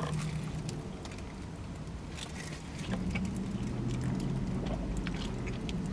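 Steady low hum of a car engine idling, heard from inside the cabin, with its pitch shifting slightly about halfway through. A few faint clicks of eating sit on top.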